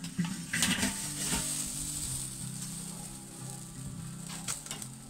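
Whole mackerel sizzling over hot charcoal on a kettle grill, in a wire fish basket and a foil parcel, a steady hiss. A few short metal clanks come early on and near the end as the lid and grill are handled.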